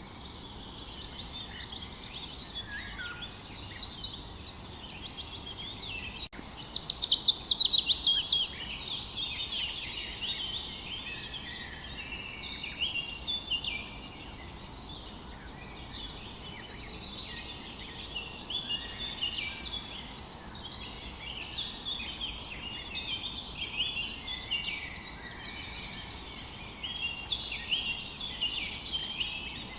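Several songbirds singing together, overlapping chirps and trills over a faint steady hiss. About six seconds in, right after a momentary dropout, one bird gives a loud, rapid trill that falls in pitch over about two seconds.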